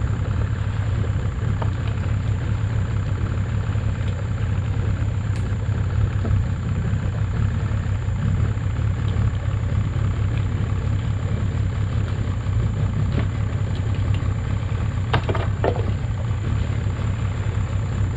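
Small boat's engine idling steadily while the boat holds position, with two brief knocks about 15 seconds in.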